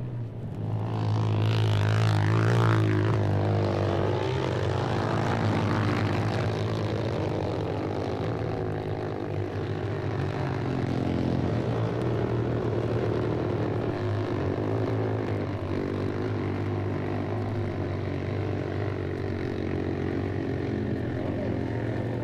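Recorded engine sound effect: an engine running with a steady low hum, swelling over the first two seconds, then holding steady.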